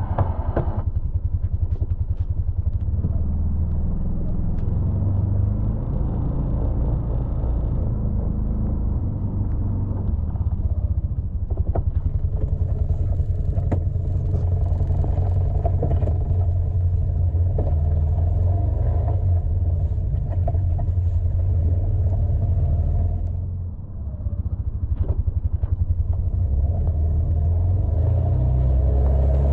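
Can-Am Defender side-by-side's engine running steadily with a low drone, easing off briefly near the end before picking back up.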